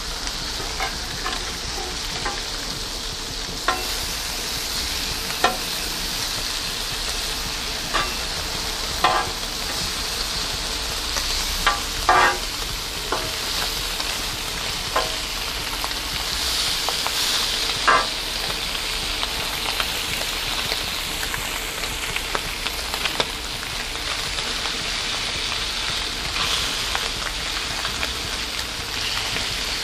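Beef bacon sizzling steadily on a Blackstone flat-top griddle, with a metal spatula now and then scraping and clinking against the steel cooking surface as the strips are pressed and moved.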